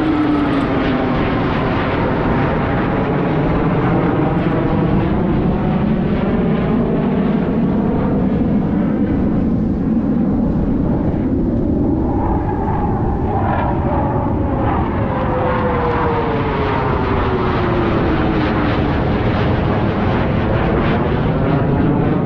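Aircraft engine drone as an airplane passes low overhead, loud and steady, with a tone that slowly falls in pitch near the end.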